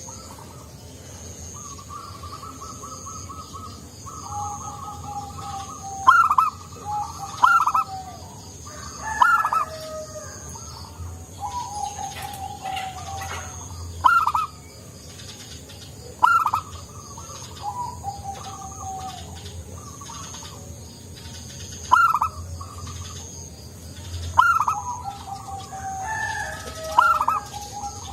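Zebra dove (perkutut) cooing: repeated phrases, each opening with a sharp rising note and running into a rattling, trilled series of soft coos, about eight phrases over the stretch. A faint, evenly pulsing high-pitched tone runs underneath.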